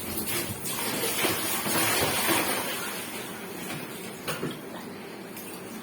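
Water pouring and splashing, swelling for a couple of seconds and then tailing off, with a sharp click about four seconds in.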